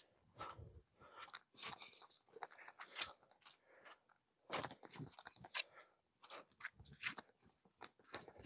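Stainless steel digging spade cutting into turf and soil, a run of irregular crunches as the ground is dug out over a buried target.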